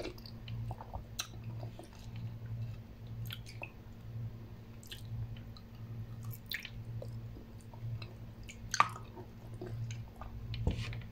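A person chewing mouthfuls of instant noodle soup, with scattered small wet mouth clicks and one sharper click near nine seconds in. A steady low hum runs underneath.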